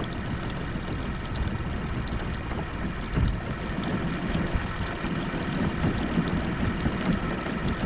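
Four-stroke outboard motor running steadily as the boat moves along, with water splashing and rushing past the hull.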